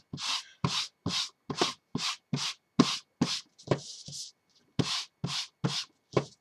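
An ink pad in a plastic case is pressed and dabbed again and again onto a piece of card, a quick run of soft taps about two to three a second with a short break about four seconds in. This is ink pad stamping, which builds up a mottled inked background on the card.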